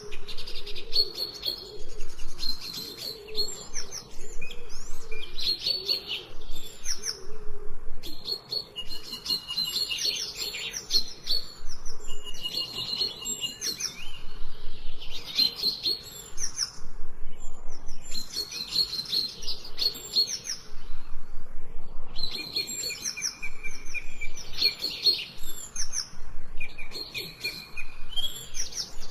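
Several small birds chirping and singing in repeated bouts of quick, high chirps and short trills, with brief pauses between bouts.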